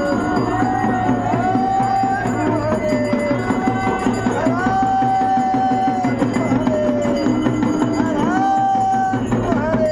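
Hindu devotional aarti music: a melody of held notes that slide down at their ends, repeating its phrase every couple of seconds, over steady drumming.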